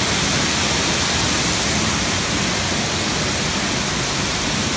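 Indoor waterfall exhibit: a loud, even rush of falling water.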